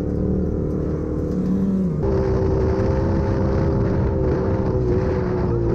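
Off-road vehicle engine running at a steady pitch, with a short rise in pitch about a second and a half in. About two seconds in the sound switches abruptly to another steady engine note.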